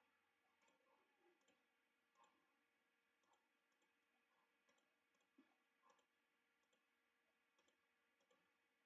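Near silence, with very faint scattered computer mouse clicks at irregular intervals.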